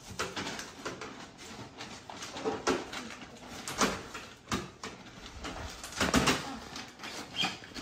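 Gift wrapping paper crinkling and rustling in irregular bursts as it is picked at and pulled open by hand.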